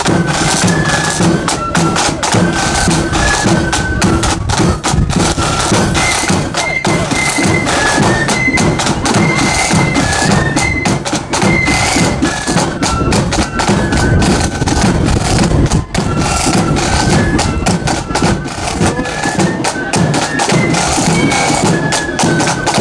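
A marching flute band playing a tune over snare and bass drums: a high melody of held notes stepping up and down, carried on a steady drum beat.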